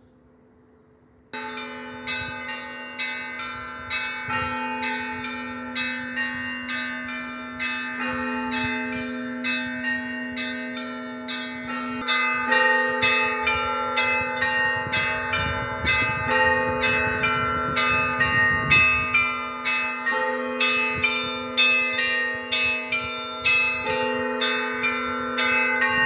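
Russian Orthodox cathedral bells ringing for the start of the service. Smaller bells are struck in a quick, even rhythm of about two strokes a second over the steady hum of a deep bell. The ringing starts about a second in and grows louder about halfway through.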